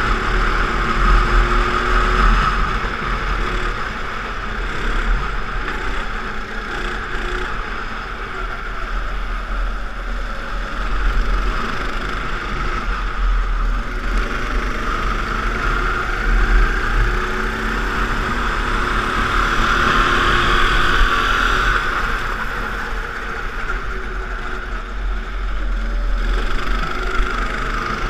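Go-kart engine running at speed on track, its pitch falling and rising again and again as the kart brakes and accelerates through corners, over a steady low rumble.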